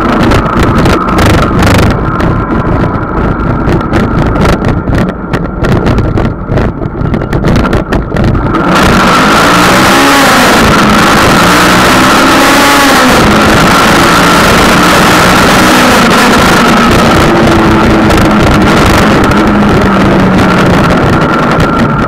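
Wind buffeting the microphone of a camera on a moving motorcycle, with the engine running underneath. About eight seconds in, the gusting turns into a steady loud wind roar as the bike speeds up, and the engine note rises and falls a few times.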